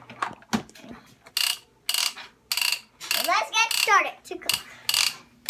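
Plastic parts of a toy kitchen clicking and rattling as a child handles them, in about half a dozen short bursts. A young child's voice is heard briefly in the middle.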